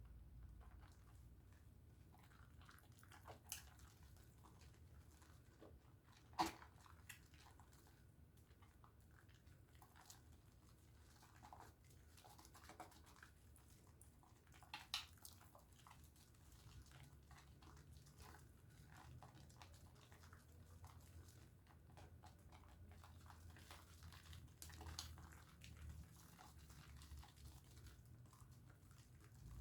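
Faint wet crackling and clicking of a pink Dove soap bar being lathered, with two sharper clicks partway through, over a low hum.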